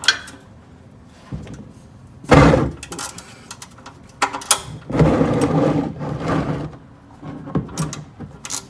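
A ratchet and socket working a car's oil drain plug loose: scattered sharp clicks and metallic knocks, with two longer loud rushes of noise, one about two seconds in and one around the middle.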